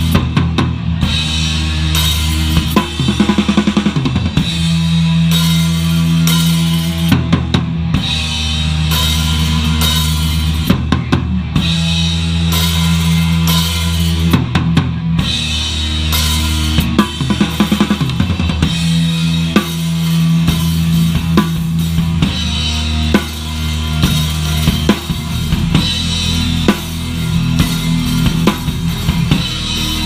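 Live horror punk band playing a song: a pounding drum kit with bass drum, snare and cymbals under sustained bass and guitar notes, loud and continuous.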